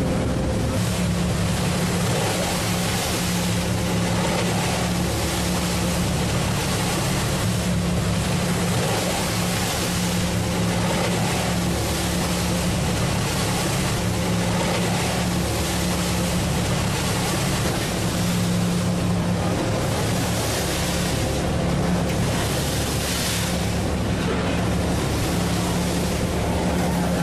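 Pilot boat's engines running with a steady drone, under rushing water and spray along the hull and wind noise on the microphone in rough seas.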